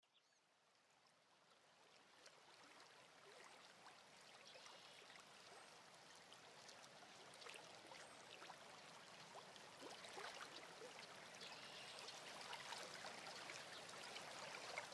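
Faint running water, like a stream, fading in slowly, with scattered small trickling ticks.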